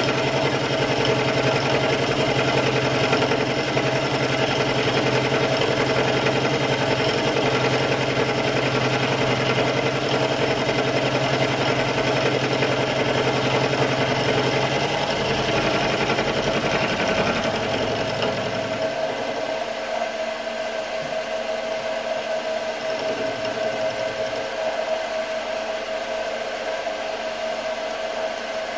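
Optimum D180 x 300 mini lathe running, with a milling cutter in its chuck cutting a metal block held in a milling attachment: a steady motor whine over cutting noise and a low rumble. About two thirds of the way through, the rumble of the cut drops away, leaving the lathe's steady whine.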